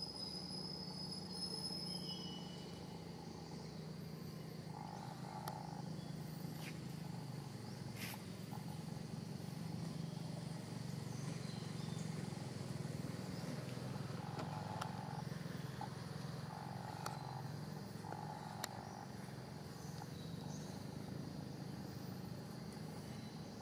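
Outdoor ambience: a steady low drone with a few short, thin calls early on and several brief mid-pitched notes, broken by a couple of sharp clicks about eight seconds in and again near the end.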